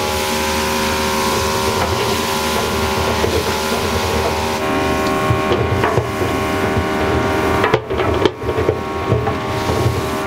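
Steady loud drone of a commercial kitchen's gas burners and equipment, with a wooden spatula scraping and stirring inside a large aluminium stockpot.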